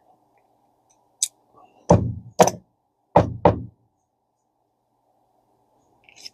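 Four solid knocks in two pairs, with a light click just before them: reel parts being knocked against the workbench while seating a stubborn bushing.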